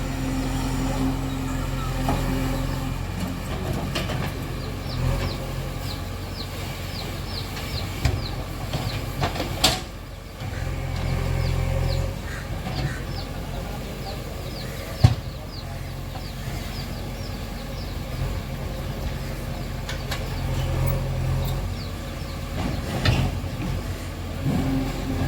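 JCB backhoe loader's diesel engine running under working load, its note swelling and easing as the hydraulics dig, with a few sharp metallic knocks from the bucket and arm. Two runs of short, quick high chirps sound over it.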